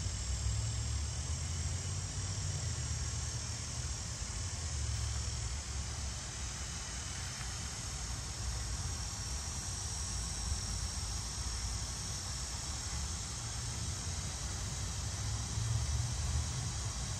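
Steady high-pitched insect chorus over a low rumble.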